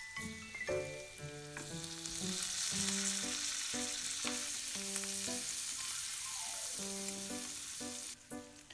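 Vegetables frying in oil in a small frying pan: a steady sizzle that grows louder about two seconds in and cuts off near the end, with chopsticks stirring. Light background music with mallet-like notes plays alongside.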